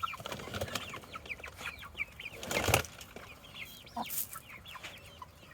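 A flock of young chickens peeping and clucking, many short high chirps overlapping, with a brief rustle about two and a half seconds in.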